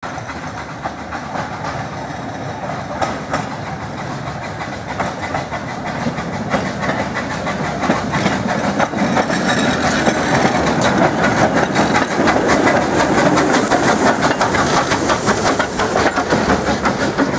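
Narrow-gauge steam train approaching and running past close by, its wheels clattering over rail joints and pointwork, growing louder as it nears.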